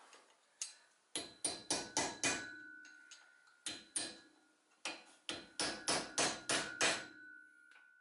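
Hammer blows on a Moog universal joint's bearing cap in a driveshaft yoke held in a vise, tapping the cap in so the C-clip can go on. About fifteen sharp metallic strikes come in three bursts, roughly four a second, each leaving a ringing tone.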